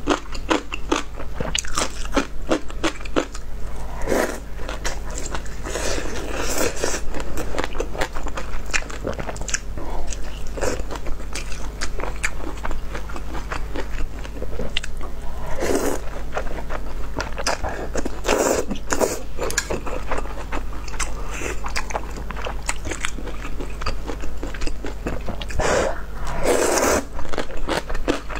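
Close-miked eating sounds from a bowl of rice-noodle soup: wet chewing with crisp crunches, broken by several louder slurps of noodles and broth.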